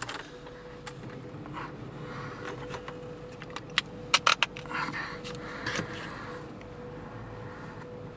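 Ford Panther-platform sedan's 4.6-litre V8 idling cold, heard from inside the cabin, with a steady hum throughout. A few sharp clicks come in a cluster about four seconds in, with short rustles of handling around them.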